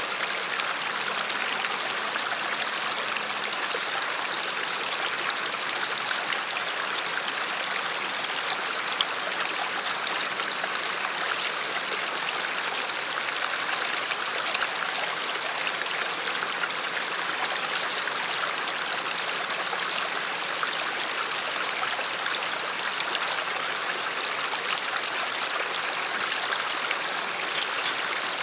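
Shallow creek water running steadily over rocks, a continuous rushing and babbling.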